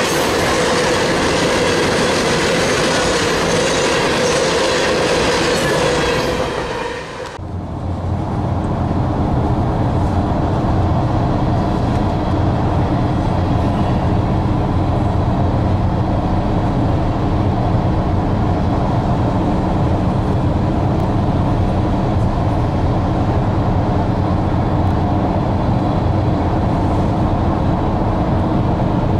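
Freight train's hopper cars rolling past on the rails. About seven seconds in it cuts to a steady low rumble of road noise from inside a car driving alongside the train.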